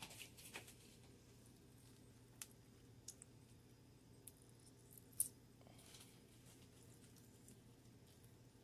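Near silence with a faint steady low hum and a few small, scattered clicks, the loudest about five seconds in.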